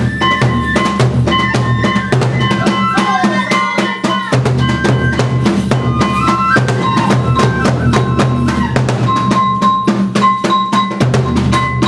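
Kagura music: rapid, continuous taiko drumming under a high bamboo flute melody of held notes with wavering ornaments.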